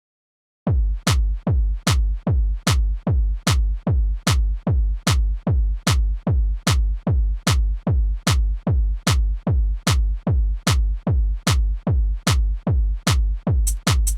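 Electronic track made in FastTracker 2 starts about half a second in with a steady kick drum at about two and a half beats a second, each beat carrying a sharp click on top. Fast hi-hats join near the end.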